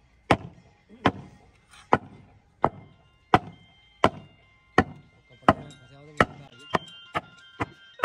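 A regular series of sharp strikes from a hand tool, about one every 0.7 seconds, coming faster near the end. A faint steady high tone joins a few seconds in.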